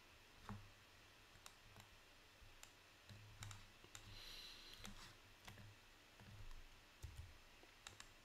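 Near silence: quiet room tone with faint short clicks at irregular intervals.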